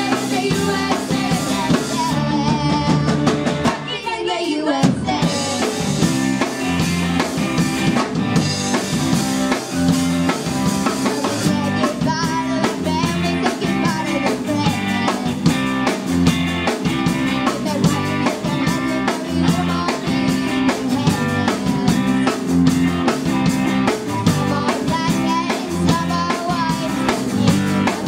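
Rock music played by a band with drum kit and guitar. A falling sweep comes about four seconds in, then a steady beat carries on.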